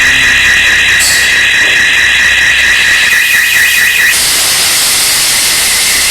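Anti-theft fog generator discharging fog with a loud steady hiss, under a high warbling alarm tone. About four seconds in, the alarm tone drops back and the hiss turns brighter.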